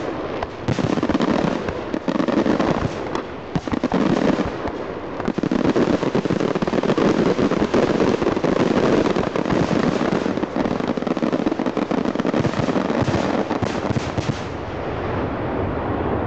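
Fireworks display: a dense, nearly unbroken barrage of shell bursts and crackling, easing off about two seconds before the end.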